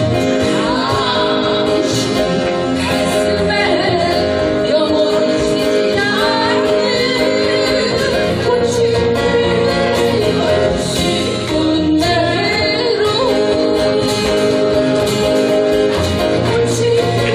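A live song: a singer's voice carrying the melody over guitar and backing accompaniment, steady and loud throughout.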